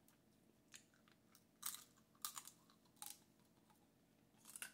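Close-up eating sounds of snow crab legs: a handful of short, sharp crackles and wet smacks at intervals as the shell is handled and the meat is pulled out and chewed.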